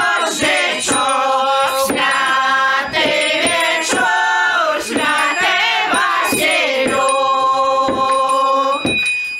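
A group of singers singing a Shchedrets New Year's carol together, in long drawn-out sung phrases, holding one long note near the end before a short breath.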